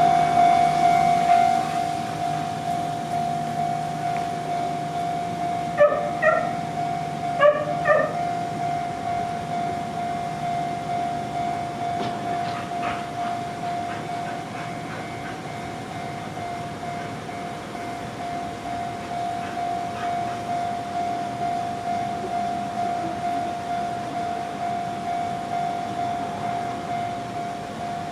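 Japanese level crossing warning bell ringing with an even, repeating clang, while the rumble of a train that has just passed fades away over the first several seconds. Two short yelps break in about six and seven and a half seconds in.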